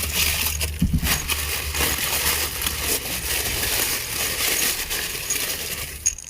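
Crumpled packing paper rustling and crackling as an item is dug out and unwrapped, with many small crinkles and clicks that stop just before the end.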